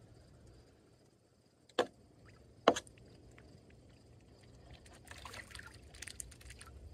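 Toulouse and Emden geese bathing in a plastic wading pool, splashing the water: two sharp splashes about a second apart, then a run of quicker, lighter splashing and dripping near the end.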